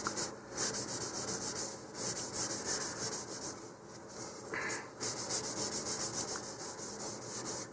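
A cloth rubbing quickly over a plastic rocket nose cone, wiping off sanding dust after the filler putty has been sanded. It comes in three bursts of rapid strokes, several a second, with a pause near the middle.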